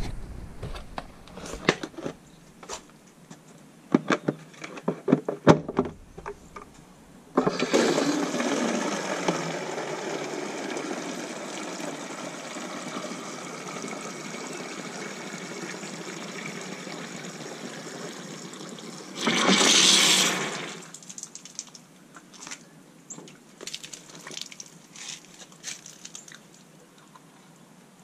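Water running from an outdoor hose faucet into a plastic container for about thirteen seconds, starting suddenly and ending with a louder rush before it stops. Clicks and handling of the container and faucet come before and after.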